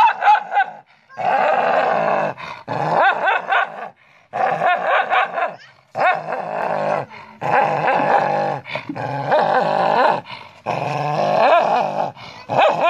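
A dog snarling and growling at its own reflection in a mirror, taking it for a rival. It comes in long, loud bouts of a second or two each, one after another with only short breaks.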